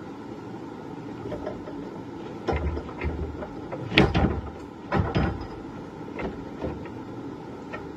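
A few irregular knocks and thuds over steady background noise, the loudest about four seconds in and another just after five seconds.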